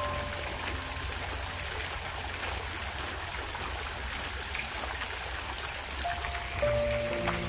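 Running water babbling steadily, an even splashing hiss with no pauses. Background music is faintly under it, with a few held notes near the start and again in the last second or so.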